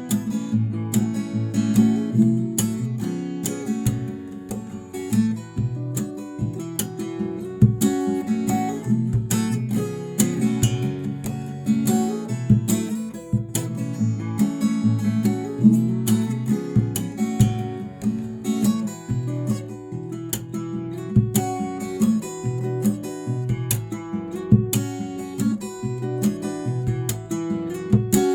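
Solo acoustic guitar played fingerstyle: a continuous arrangement of the melody over bass notes, with frequent sharp plucked attacks and some strummed chords.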